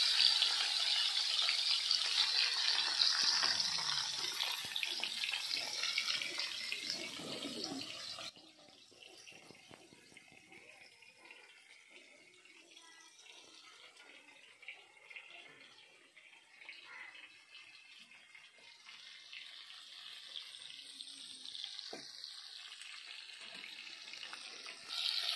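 Rohu fish steaks sizzling in hot mustard oil in a kadhai, a steady hiss that slowly fades and then cuts off abruptly about eight seconds in, leaving only faint background noise.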